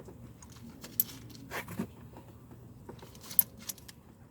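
Light metallic clicks and clinks of hand tools and a spark plug being handled and threaded into the engine: a few separate clicks about a second in, again shortly after, and a pair near the end.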